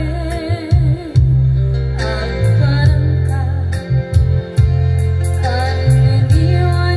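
A woman singing a slow Ilocano song into a microphone, her voice wavering with vibrato. Behind her runs a live electronic-keyboard backing: a heavy bass line and a steady programmed drum beat.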